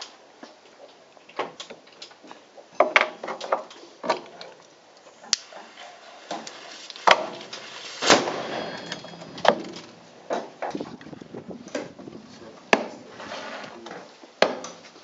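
Miniature black-powder cannons firing in an enclosed range hall: a series of sharp bangs at irregular intervals, the one about eight seconds in followed by a short fizzing tail as sparks fly from the piece.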